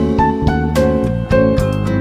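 Instrumental background music with a melody of pitched notes over a steady bass.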